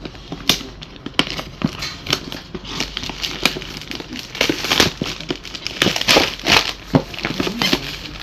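Packaging of a PC power supply being unboxed: irregular crinkling and rustling of plastic wrap and cardboard with small knocks, busiest from about four seconds in.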